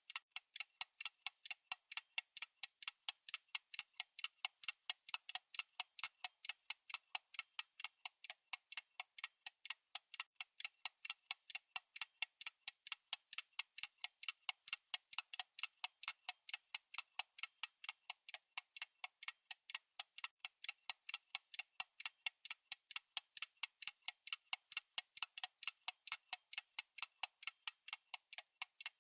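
Steady clock-tick sound effect of a countdown timer: rapid, evenly spaced, crisp ticks with no change in pace or loudness.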